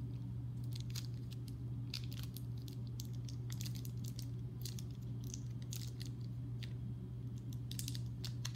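A small plastic bag crinkling in irregular crackles and rustles as it is handled and opened by hand. A steady low hum runs underneath.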